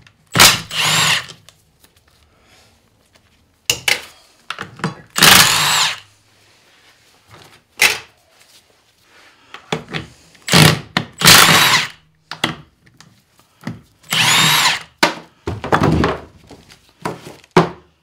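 Cordless brushless impact wrench run in repeated short bursts of about half a second to a second, spinning out the aluminium transfer case's housing bolts, with a few short knocks between the bursts.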